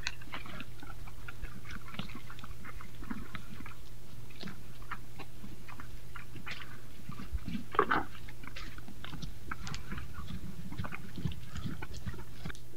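Red deer crunching and chewing apples from a wheelbarrow: a quick irregular run of short crunches, with one louder crunch about eight seconds in. Under it runs the steady low electrical hum of the trail camera's microphone.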